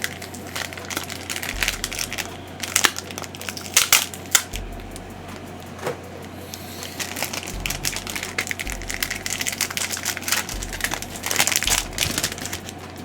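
Plastic wrapper of a trading-card hanger pack being torn open and crinkled by hand, with a dense run of crackles and rustles.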